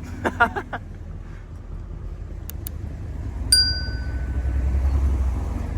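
The Chevrolet Camaro SS 1LE's 6.2-litre V8 running with a low, steady rumble that swells slightly in the second half. About midway a single bright ding sounds and rings on for a couple of seconds.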